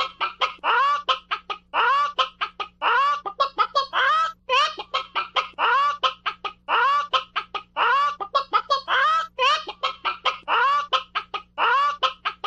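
Chicken clucking and bawking without pause: quick runs of short clucks alternating with longer drawn-out calls, about one longer call a second.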